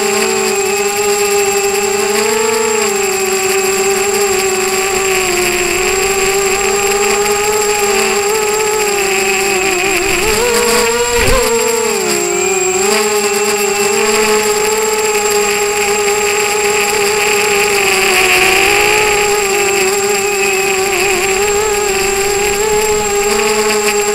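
A 250-size FPV quadcopter's four DYS 1806 2300KV brushless motors and propellers whining steadily, heard from on board, the pitch wavering with throttle. About eleven seconds in, the pitch swings sharply up and down with a brief knock.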